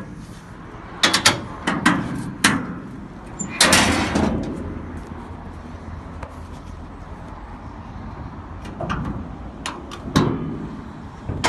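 The hood of a 1960 Studebaker Hawk being lowered and shut. A few sharp clicks and knocks come first, then one loud slam with a short rattle about four seconds in, and a few lighter knocks near the end.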